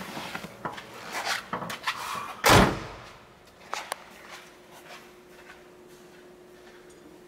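A few scattered knocks and rustles, then one loud thump about two and a half seconds in. After that it goes quiet apart from a faint steady hum.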